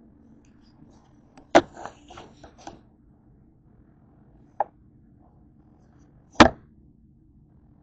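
Hard knocks of objects being handled during a meal: a sharp knock followed by a quick clatter of smaller clicks, a faint tap, then a second loud knock.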